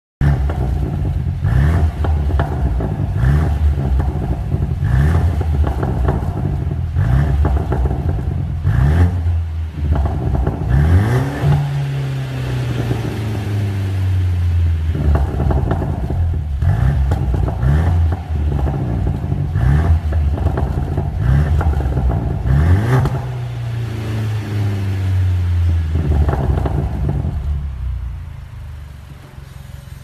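Mercedes-Benz C200 (W205) engine revving through an Armytrix valvetronic exhaust, loud. It gives short throttle blips about every two seconds, with a couple of longer revs whose pitch sinks slowly back to idle. The sound fades out near the end.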